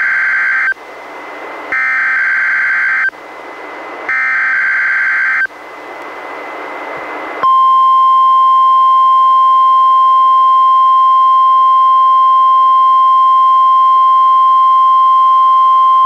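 NOAA Weather Radio Required Weekly Test heard through a Reecom R-1630 weather radio. First come the end of one SAME header burst and two more digital data bursts, each about a second and a half long, with radio hiss between them. Then, about seven and a half seconds in, the steady 1050 Hz warning alarm tone starts and holds.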